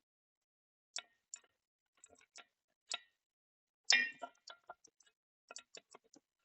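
Scattered sharp metallic clicks and clinks of tools and steel parts being handled. The loudest is a clank about four seconds in that rings briefly, followed by a quick run of lighter ticks.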